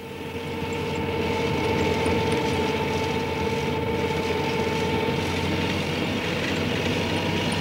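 A vehicle driving fast over a sandy desert track, with a steady engine and rolling noise. It fades in over the first second.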